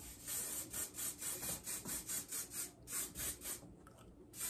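A hand-pumped spray bottle being squeezed rapidly to mist braided hair: a quick run of short hissing spritzes, about four a second, with a brief pause near the end before the spritzing starts again.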